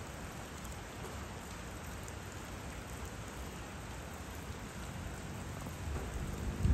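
Steady rain falling, an even hiss with a low rumble beneath. The rumble swells near the end and ends in a brief low thump.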